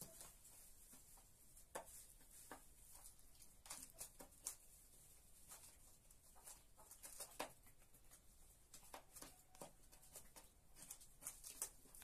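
Faint, irregular taps and clicks of hens pecking grain from a plastic feeder pan.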